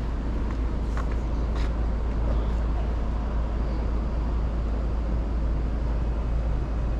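Steady city street noise: a low traffic rumble, with a few faint clicks in the first two seconds.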